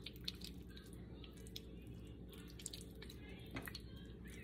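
Faint wet squishing and light irregular clicks of raw skinless chicken breast pieces being handled and rubbed by hand.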